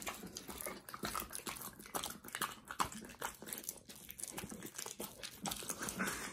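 Alaskan Malamute mouthing and chewing a piece of raw meat: a run of irregular small wet smacks and clicks from its jaws.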